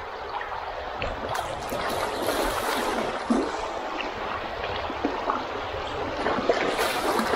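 River water rushing and rippling around an inflatable boat drifting downstream, with a few light knocks.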